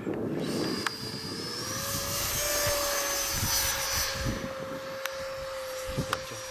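Electric ducted fan of a model jet flying overhead, a steady whine that rises a little in pitch about two seconds in and is loudest in the middle.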